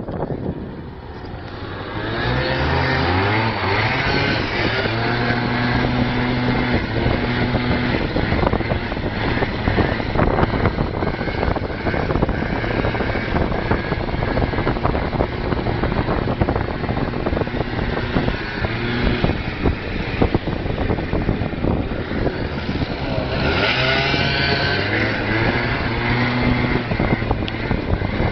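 Motorbike engine revving and accelerating, its pitch climbing in steps about two seconds in and again near the end, under a constant rushing noise.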